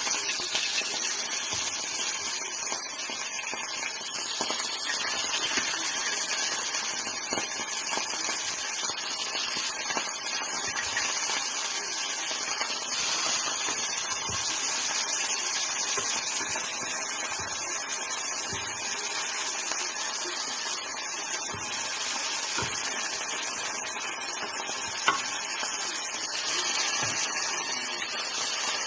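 A steady high hiss throughout, with a single sharp click about three seconds before the end.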